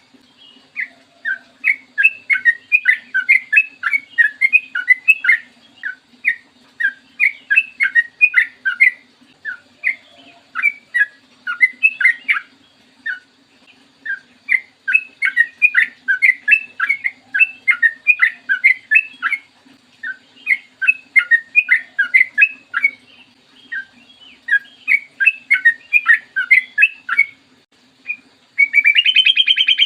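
Yellow-vented bulbul (trucukan) singing in long, rapid runs of short bubbly notes, broken by brief pauses. Near the end comes a short, harsh, buzzy call. A faint steady low hum runs underneath.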